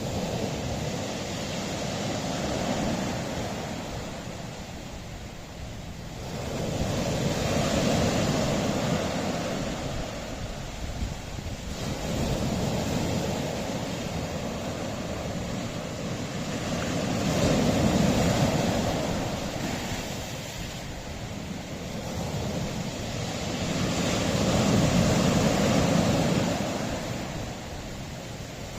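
Sea waves breaking and washing on a rocky shore, swelling and ebbing in slow surges about every six seconds, with some wind noise on the microphone.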